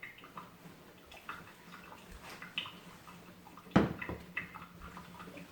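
Drip coffee maker brewing: faint gurgling and irregular dripping ticks over a low steady hum, with one sharper click about four seconds in.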